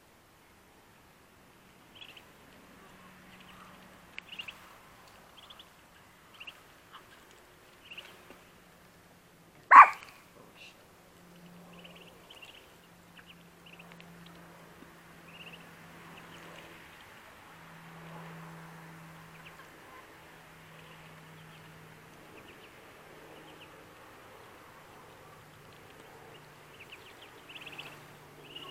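Muscovy ducklings peeping in short, high chirps every second or so. About ten seconds in comes one loud, sharp call like a bark.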